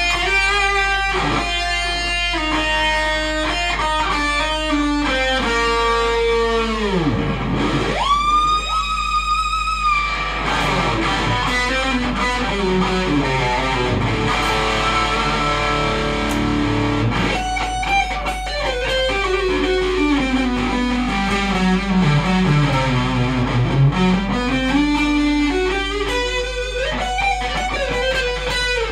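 Ibanez electric guitar with a locking tremolo played in fast lead lines. About seven seconds in, a whammy-bar dive drops the pitch steeply, then a high, wavering note imitates a horse's whinny.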